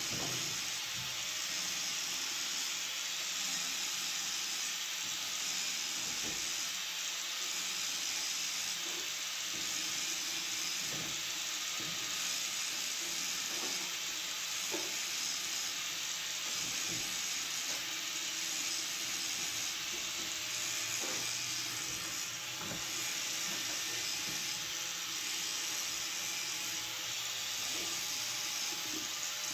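Steady hiss throughout, with a few faint clicks of metal parts as a sewing machine's hook assembly is handled.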